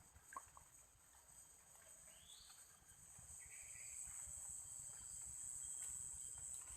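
Faint riverside ambience: a steady high-pitched insect drone, with a couple of faint short rising calls about two to three seconds in.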